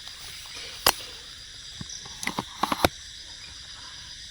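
Crickets chirring steadily, with a sharp click about a second in and a quick cluster of clicks and knocks a little past the middle, from a camera being handled and set in place.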